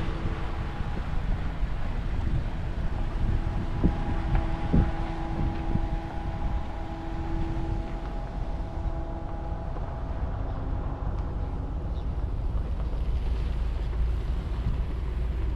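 Motorboat engine running with a steady hum, over wind on the microphone; the hum fades about ten seconds in.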